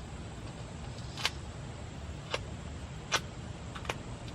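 Four short sharp clicks, spaced about a second apart, over a steady low background rumble.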